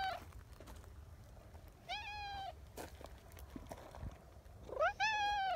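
Brown tabby cat meowing at close range. The tail of one meow ends at the start, a short meow comes about two seconds in, and a longer meow rises and holds near the end.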